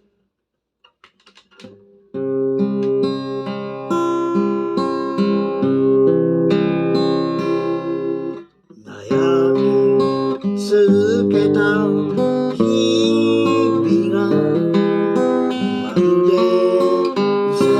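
Acoustic guitar playing a song's instrumental intro, with chords starting about two seconds in. It breaks off briefly near the middle and then resumes with a wavering melody line over the chords.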